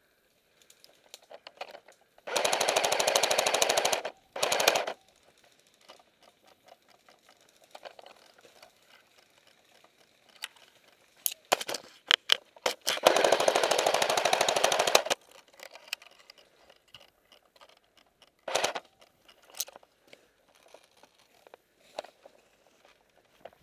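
Airsoft electric rifle (AEG) firing full-auto bursts: a long burst of about two seconds, a short burst right after, then another two-second burst later on, with a few single sharp cracks in between.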